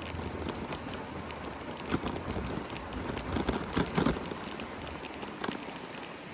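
Steady rush of rain-swollen floodwater, with scattered short clicks and knocks over it, several close together around four seconds in.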